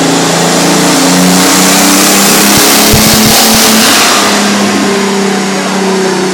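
Turbocharged VR6 engine of a VW Jetta run hard on a chassis dynamometer. The engine and turbo noise build to a loud peak about three to four seconds in, with a few low thumps near the peak, then ease off.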